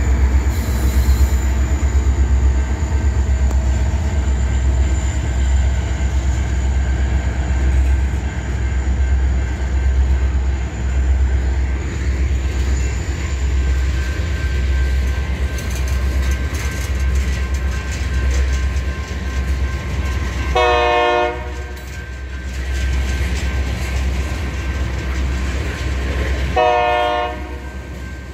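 Union Pacific freight train rolling past: a steady rumble and rattle of freight cars on the rails. Two short train horn blasts sound near the end, about six seconds apart.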